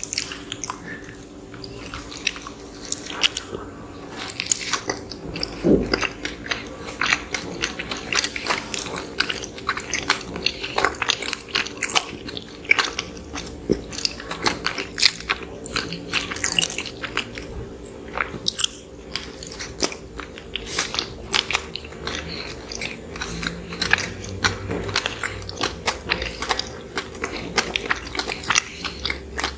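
Close-miked eating: soft, moist bites and chewing of fluffy cinnamon rolls, with many small irregular clicks and crackles of mouth sounds.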